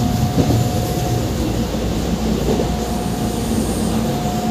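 Passenger train running, heard from inside the car: a steady rumble with a thin steady whine that drops out partway through and returns near the end.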